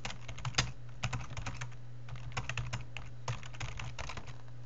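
Typing on a computer keyboard: a quick, uneven run of keystrokes that stops near the end, over a steady low hum.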